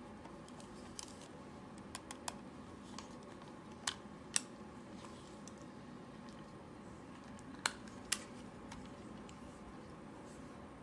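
Small sharp clicks and taps from a Sony WM-DD9 Walkman cassette player being handled, and its cassette door being unlatched and opened. The clicks are scattered, and the loudest come in two quick pairs, about four and about eight seconds in.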